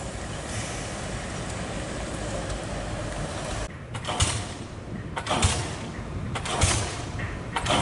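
Heavy truck traffic on a rough dirt road: a steady engine rumble, then about four loud thuds a little over a second apart as a truck comes over the ruts.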